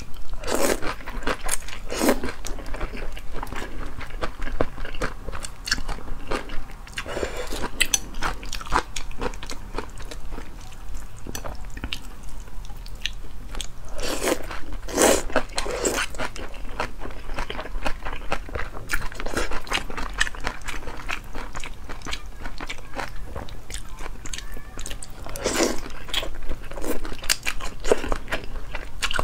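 Close-miked eating of cold noodles in broth: wet chewing and crunchy bites with many small mouth clicks, broken by a few louder slurps of noodles.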